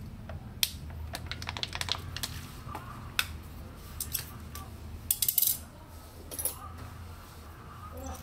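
A run of light clicks and clinks from small metal parts and hand tools being handled, in quick clusters about a second in and again about five seconds in. A steady low hum runs underneath.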